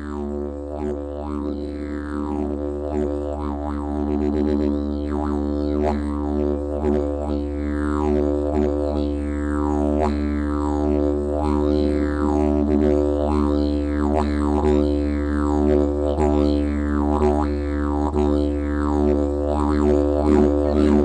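Droning instrumental music: a steady low drone with rich overtones. Bright sweeps in the overtones fall in pitch roughly once a second, giving a rhythmic wah-like pulse.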